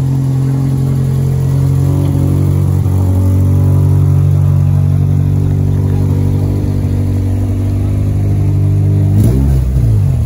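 Toyota AE86 Corolla's twin-cam four-cylinder engine idling close by with a steady note, then revving unevenly about nine seconds in.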